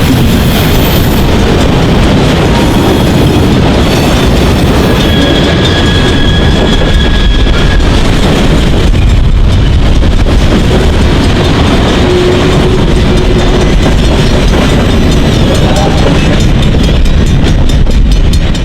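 Freight train in motion, its wheels clattering steadily on the rails, with a brief high squeal about five seconds in that lasts a few seconds.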